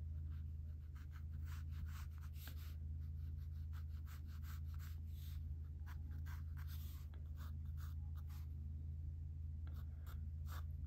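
Quick, scratchy sketching strokes on a drawing surface, coming in irregular runs with short pauses, over a low steady hum.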